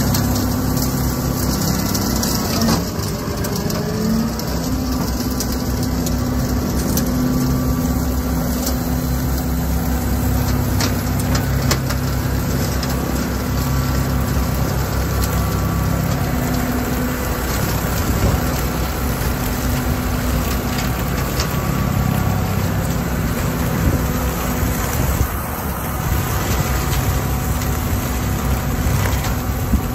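Kubota L3901 compact tractor's diesel engine running steadily while its PTO-driven Land Pride rotary cutter (brush hog) cuts through saplings and brambles, with scattered sharp cracks from the blades hitting stems.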